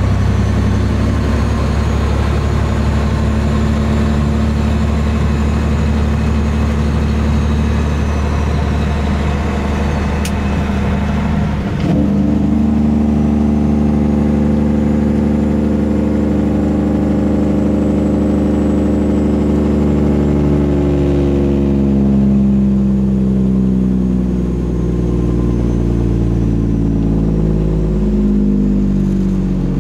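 Detroit Diesel Series 60 engine of a Peterbilt 389 tractor pulling on the road, heard from inside the cab. Its note breaks briefly about twelve seconds in, then climbs and slowly falls again.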